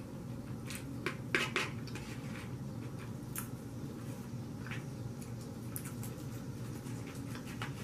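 Knife and fork clinking and scraping against a plate while cutting deep-dish pizza: a scatter of light clicks and scrapes, the loudest cluster about a second and a half in.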